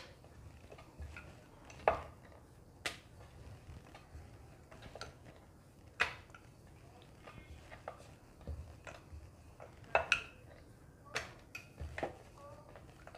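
Wooden rolling pin knocking and clacking against a wooden rolling board as dough is rolled out thin: scattered light knocks, about a dozen, irregularly spaced, over faint room background.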